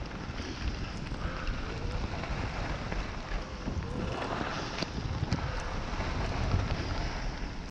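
Wind buffeting the microphone on a ski descent, with the hiss of skis sliding over snow swelling and fading between turns.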